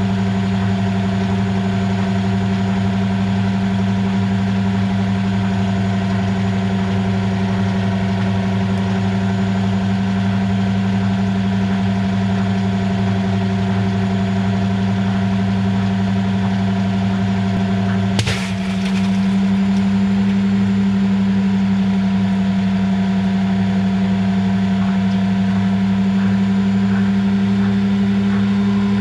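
Washing machine running with a steady motor hum. About 18 seconds in there is a single sharp pop, after which the hum runs on slightly higher in pitch.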